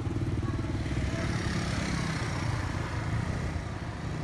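A vehicle engine running with a low, rapidly pulsing rumble, with a hiss of wind or road noise over it.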